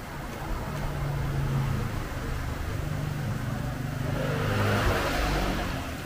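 Motor vehicle engine running in street traffic, a steady low hum that grows louder and noisier from about four seconds in.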